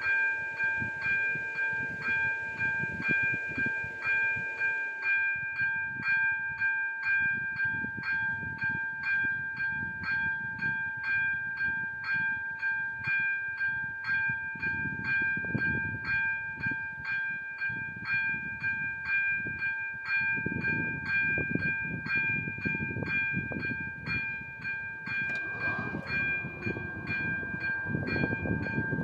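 A railroad crossing's warning bell ringing steadily, about two strokes a second, while a train rumbles past the crossing, its noise rising and falling and growing louder in the second half.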